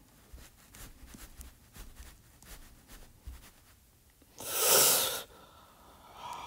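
A few faint soft ticks, then, about four and a half seconds in, a loud burst of breath lasting about a second from a person close to the microphone. A voice starts near the end.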